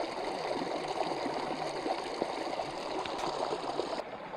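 Small stream of water trickling over rocks into a lake, a steady rush. Its higher hiss cuts out suddenly near the end.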